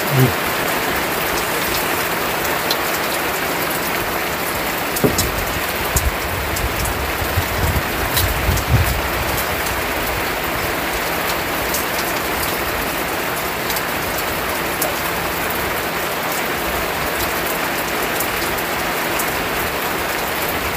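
Heavy rain falling steadily in a continuous even hiss. A few soft low thumps come between about five and nine seconds in.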